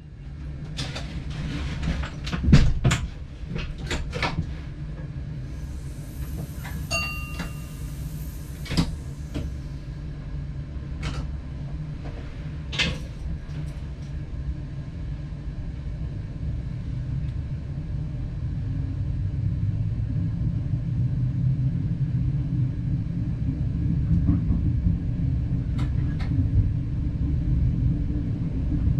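Diesel multiple unit heard from the driver's cab. A series of knocks and clicks comes first, with a hiss carrying a brief electronic beep about seven seconds in. From about halfway through, a low engine and running rumble builds steadily louder as the train pulls away and gathers speed.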